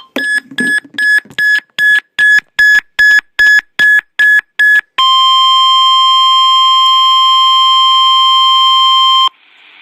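A weather-alert receiver sounds about a dozen short, high electronic beeps, roughly three a second. After about five seconds they give way to the steady 1050 Hz NOAA Weather Radio warning alarm tone, which signals an urgent warning and cuts off sharply after about four seconds, leaving a faint radio hiss.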